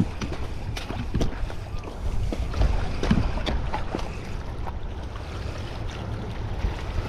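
Wind buffeting the microphone over water lapping among shoreline rocks, with scattered short clicks and knocks.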